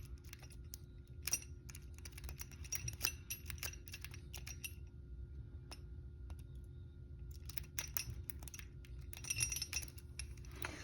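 Small metallic clicks and taps of a lock pick and tension wrench working in an old Master Lock padlock that is not opening, in two runs with a pause of about three seconds in the middle.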